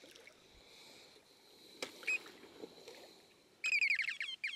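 Battery-powered electronic device sounding a rapid warbling trill of falling chirps, then a steady high beep, as its 12-volt battery runs flat. Before it, a couple of light knocks about two seconds in.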